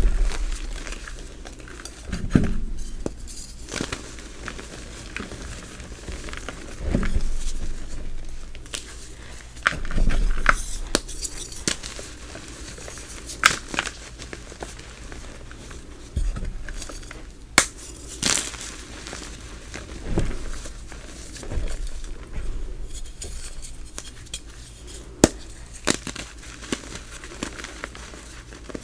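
Hands crushing and squeezing soft, crispy reformed gym chalk into powder: a run of crumbly crunches and sharp crackles, with a louder dull crush every few seconds.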